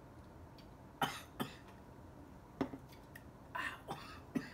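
A person coughing and clearing her throat in several short bursts after a sip of a strong bourbon cocktail.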